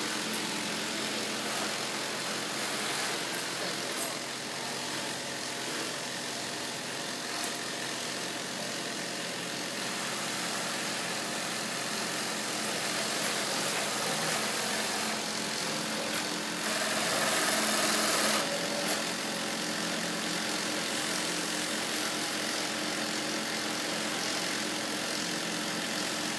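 Heavy-duty industrial sewing machine running steadily, a continuous mechanical hum with a slightly louder stretch about two-thirds of the way through.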